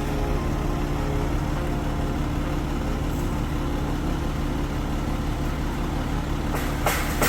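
Crane truck's engine running steadily, a constant low drone while the truck lifts a heavy load.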